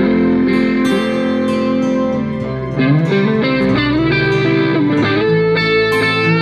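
Background music led by guitar, with notes that bend and slide over a steady low bass.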